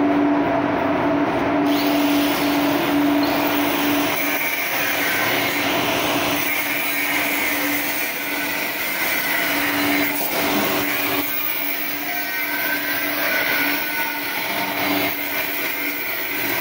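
Angle grinder running against steel plate: a steady motor whine over a rough hiss, its pitch shifting a little as the disc is pressed into the metal.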